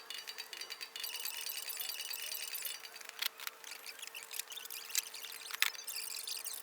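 Hard plastic ATV body panels being handled and fitted, giving a few sharp clicks and knocks, over a steady high-pitched hiss and faint hum.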